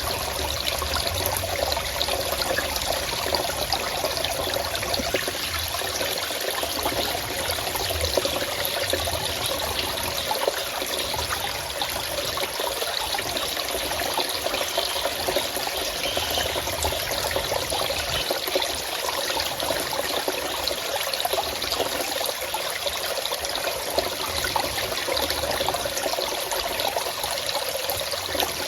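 Forest stream running steadily, water splashing and trickling over rocks.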